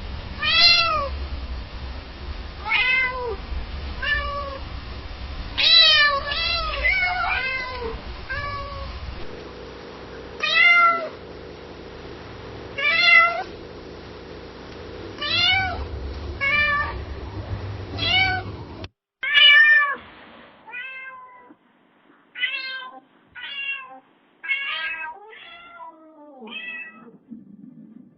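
Domestic cat meowing again and again, each meow a short rise-and-fall call, a second or two apart, over a low background rumble. About two-thirds of the way through, a different recording takes over with quicker, fainter meows; the last one is drawn out and falls in pitch.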